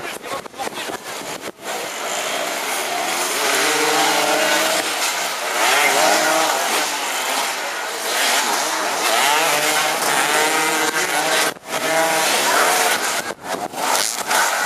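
Several racing engines revving up and down through their gears, pitch rising and falling as vehicles pass, with the sound cutting out briefly twice near the end.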